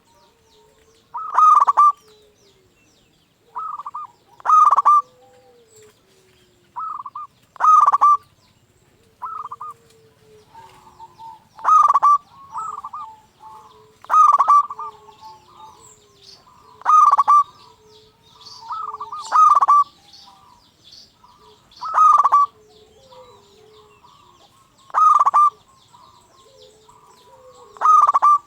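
Zebra dove (perkutut) cooing its short, loud phrase over and over, about every two and a half seconds, with fainter chirps of small birds in between.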